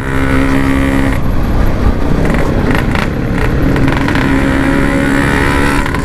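Yamaha RX King's 135cc two-stroke single-cylinder engine running at fairly steady revs through its stock-style aftermarket muffler while the bike is ridden.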